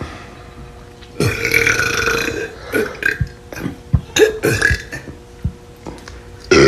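A man burping on purpose from swallowed air, with no drink: one long burp starting about a second in, then a string of short burps, one after another.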